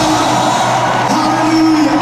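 Live gospel choir and band with the music thinning out, no deep bass, and a single voice calling out with a bending pitch about a second in.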